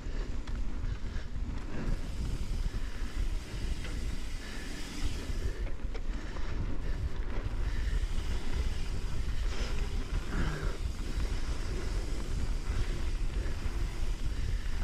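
Wind rushing over the camera microphone with a steady low rumble, together with mountain-bike tyres rolling over a damp dirt trail at speed.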